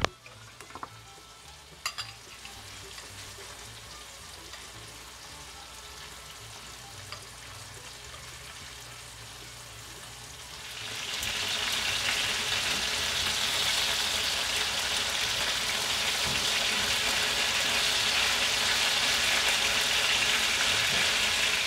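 Boneless chicken thighs frying in olive-oil marinade in a stainless steel pan: a soft, steady sizzle that grows much louder about halfway through, as more marinade is spooned over the meat.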